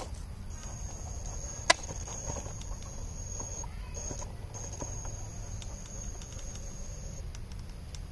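A 1/10 scale RC rock crawler working over boulders: small ticks and clicks of its tyres and chassis on the rock, with one sharp click about two seconds in. A steady high whine runs under it and breaks off twice briefly near the middle.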